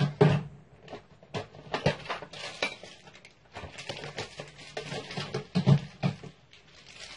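Irregular clicks and light clatter of small hard objects being handled and set down, with a few duller low thuds.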